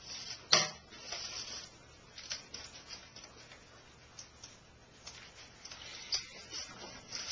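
Plastic bag crinkling and rustling as it is cut open with scissors and a frozen chicken breast is pulled out of it, with a sharp click about half a second in and fainter scattered rustles after.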